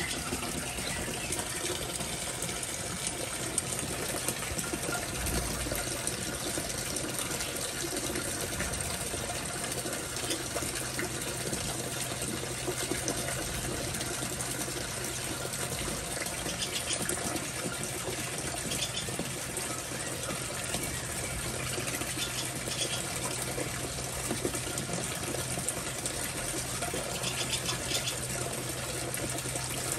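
Steady rushing of water, with a few faint short bird chirps over it now and then. A low steady hum comes in about a third of the way through.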